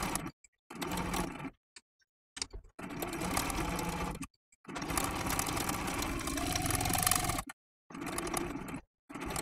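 Domestic electric sewing machine stitching through layered fabric and batting in several short runs, stopping and starting again between them; the longest run lasts about three seconds in the middle.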